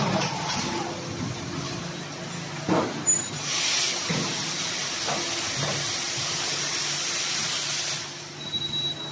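Cutting-disc making machine running with a steady hum. A couple of sharp clunks come about three seconds in, then a long hiss of air lasting several seconds that stops abruptly.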